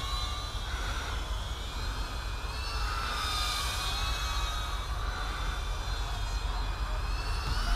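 High-pitched whine of a brushless micro FPV quadcopter's motors and propellers (LDARC/KingKong Tiny GT8) in flight, its pitch rising and falling as the throttle changes, with a steady low rumble underneath.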